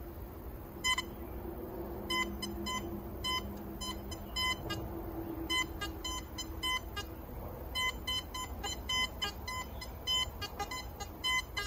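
Gold Hunter B75 metal detector's target signal: short clipped beeps in clusters, one burst each time the raised search coil sweeps over a buried copper coin in BP mode.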